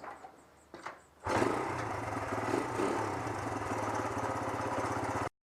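A small engine running, starting suddenly after about a second of near quiet with a few faint ticks, with a fast, even firing beat, then cutting off abruptly near the end.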